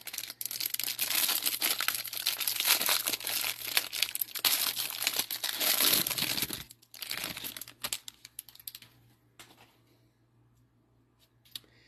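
Clear plastic wrapper on a stack of trading cards crinkling and tearing as it is pulled off. The crackling is dense for about six and a half seconds, then thins to a few scattered crinkles.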